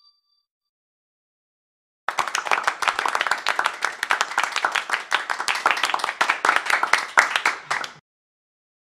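Applause: a group of people clapping, starting about two seconds in and cutting off suddenly near the end.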